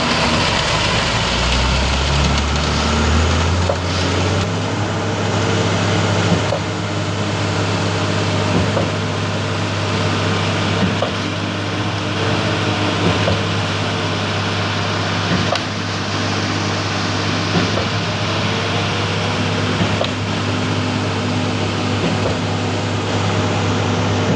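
Diesel engine of a concrete mixer truck running while it unloads concrete. The engine speeds up in steps in the first few seconds, then runs steadily at the raised speed, with a few light clicks and knocks.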